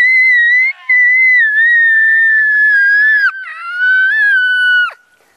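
A young boy screaming really loud on request: one long, high-pitched shriek whose pitch slides slowly down, broken by two short breaths, about a second in and about three seconds in, and stopping shortly before the end.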